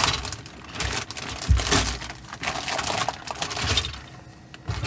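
Plastic packaging crinkling and rustling as a bag of model kit parts is opened by hand, with a dull bump about a second and a half in.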